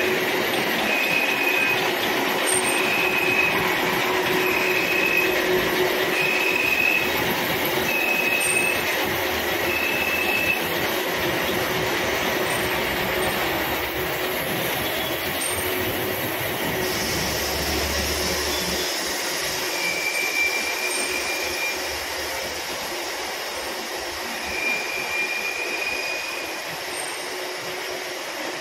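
Milling machine running and cutting gear teeth in a metal blank: a steady mechanical grinding noise with a high squeal that pulses about once a second for the first ten seconds and again near the end.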